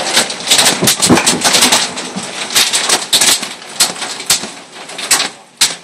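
Hailstones pelting down in a dense, rapid rattle of hard impacts. The hits thin out over the last couple of seconds and stop abruptly after one final sharp crack near the end.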